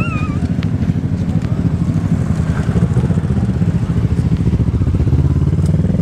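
Sea wind buffeting the microphone: a loud, unsteady low rumble.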